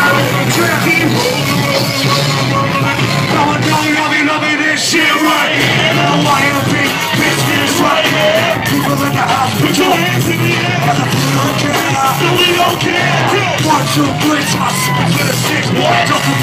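Loud live concert music from a club stage PA: a band with vocals over it, heard from within the crowd.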